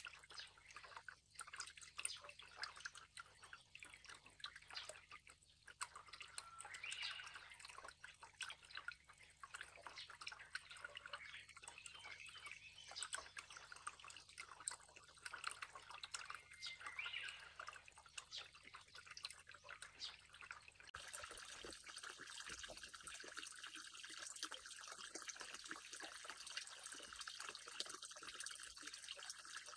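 Faint water dripping and trickling into a garden pond, many small drips over a light splashing hiss. About two-thirds of the way through, the sound turns into a denser, steadier trickle.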